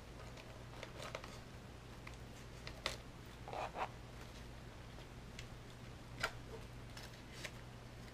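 Light clicks and rustles of pens with paper tags being handled and slotted into a fabric pen holder, a few separate taps spread out, over a steady low hum.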